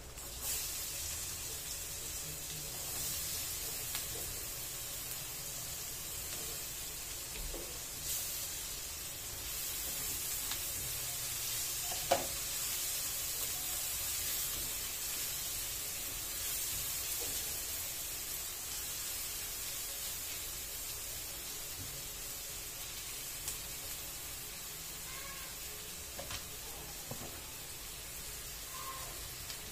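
Chopped red onion sizzling steadily in hot oil in a wok over a gas burner. The sizzle starts as the onion goes in and keeps on while it is stirred with a spatula, with a few sharp knocks of the spatula on the pan, the loudest about twelve seconds in.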